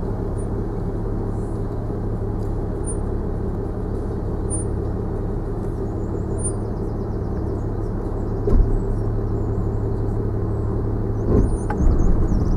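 Land Rover Discovery 4 crawling downhill in low range, heard from inside the cabin: a steady low engine drone as the engine holds the vehicle back on the descent. There are a few thumps over the ruts about eight and a half seconds in and again near the end.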